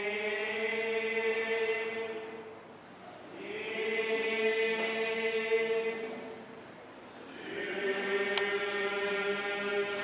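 Buddhist priests chanting in unison, their voices holding long notes on one steady pitch. The chant fades away twice for a breath and swells back in. A single sharp click sounds about eight seconds in.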